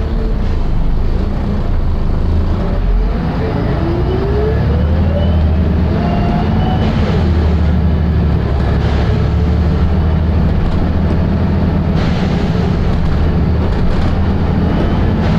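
Volvo B7RLE bus's six-cylinder diesel engine running with a steady low drone. A whine rises in pitch from about three to seven seconds in, as the bus gathers speed.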